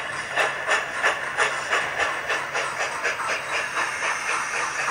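Sound-fitted model steam locomotive's decoder chuffing as the loco runs on a rolling road, an even run of about three to four steam chuffs a second with a hiss in each beat, over a faint steady hum.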